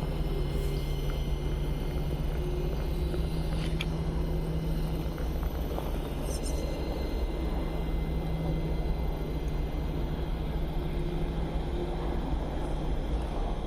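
Electric motor and gear drive of a 1/12-scale RC crawler running steadily, a low hum over a rumbling noise.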